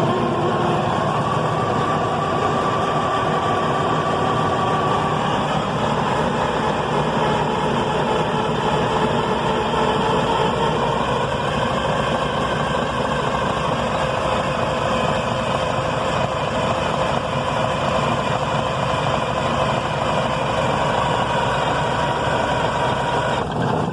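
Detroit Diesel 6V92 two-stroke V6 diesel turning over on its electric starter in a long, steady crank without starting. It is a long-stored engine being cranked for a no-start, and the cranking cuts off abruptly at the end.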